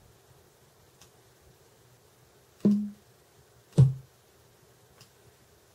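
Two short kick drum samples played back as drum files are previewed in Maschine, about a second apart: the first a little higher in pitch and ringing slightly longer, the second lower and shorter.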